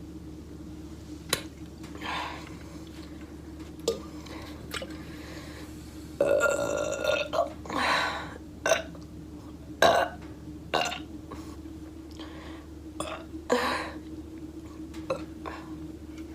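A woman burping after drinking water. One long, loud burp comes about six seconds in, then another soon after, then several shorter burps, with sharp clicks scattered between them.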